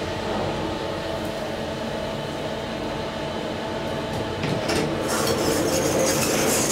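Steady hum inside an SMW traction elevator car stopped at its floor. About four and a half seconds in, its doors open and the louder metro-station noise comes in, with clicks and clinks.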